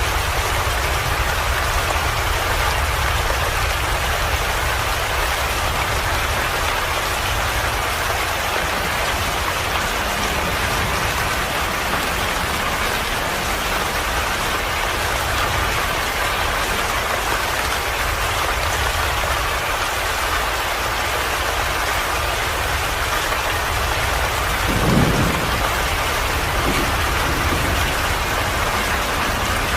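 Steady heavy rain falling, with a low rumble underneath. There is one brief louder thud about three-quarters of the way through.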